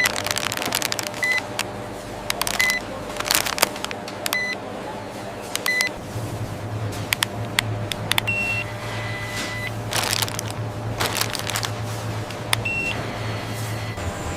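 Short electronic beeps repeating every second or so, with a few higher-pitched beeps and one longer beep near ten seconds, among sharp clicks and knocks. A steady low machine hum runs underneath and grows stronger about halfway through.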